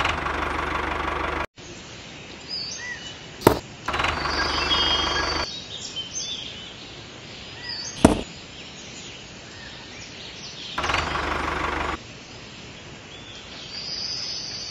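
Birds chirping in the background. Three stretches of louder rushing noise come and go, and there are two sharp clicks, about three and a half and eight seconds in.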